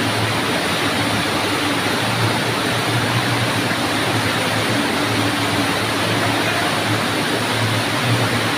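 Fountain jets in an underground cave lake, water spraying up and splashing back with a steady loud rush. A low hum comes and goes underneath.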